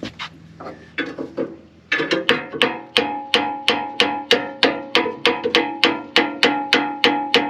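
A few scattered metal knocks, then about two seconds in a hammer starts striking a steel pin steadily, about three blows a second, each one ringing: the pin is being driven into the bulldozer C-frame's bushing.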